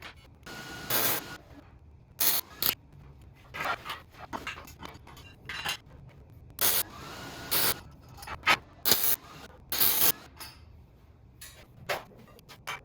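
Hand-tool work in a workshop: irregular short scraping and rubbing strokes, each under a second, with clicks and knocks between them.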